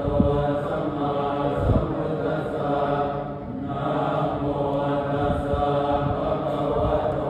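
Buddhist monks chanting Pali verses in unison, a steady droning recitation of many voices that dips briefly about halfway through.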